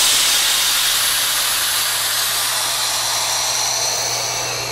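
Compressed air at about 78 psi hissing loudly out of a resin-casting pressure pot through its single small release valve, a steady high rushing hiss with a faint whistle in it, slowly getting quieter as the pot depressurizes.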